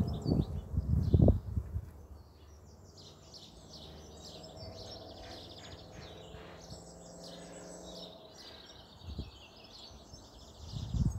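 Small birds singing and chirping outdoors throughout. There are loud low thumps in the first second and a half, and a faint steady hum from about three to eight seconds in.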